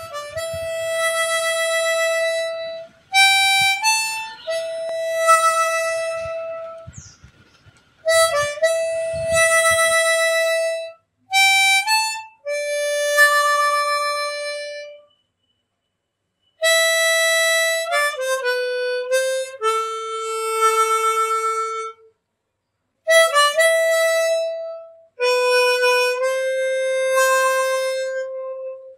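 Background music: a slow melody on a wind instrument, played as long held notes in phrases separated by short silences.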